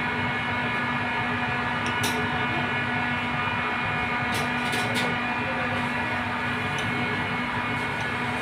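Steady mechanical hum running throughout, with a few light clinks of a knife and fork against a ceramic plate about two seconds in and again around the middle.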